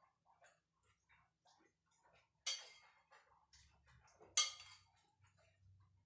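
Metal spoon clinking against a ceramic bowl twice, about two seconds apart, each clink ringing briefly, with soft spoon clicks in between.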